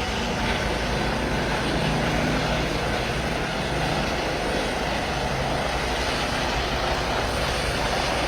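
Steady engine noise with a low hum underneath, holding an even level throughout with no breaks or sudden events.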